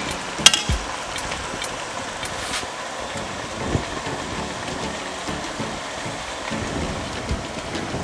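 Chicken pieces and onion sizzling steadily in a pot, with occasional clinks and scrapes of a stirring spoon against the pot, the sharpest about half a second in.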